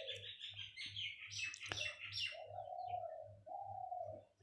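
Birds chirping, with many quick high chirps at first and two longer, lower calls in the second half, over a faint, regular low throb.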